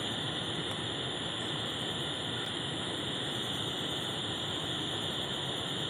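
Steady, high-pitched buzzing drone of cicadas, unbroken and even, over a faint hiss.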